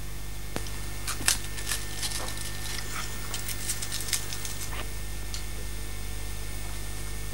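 Steady low electrical hum on the recording, with scattered light clicks and scratchy ticks over the first five seconds.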